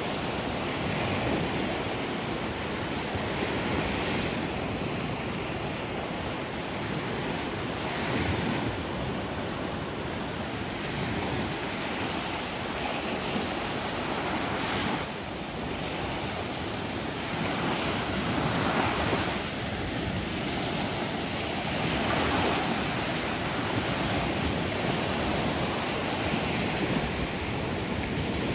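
Sea surf: waves breaking and washing in, a continuous rush that swells and eases every few seconds.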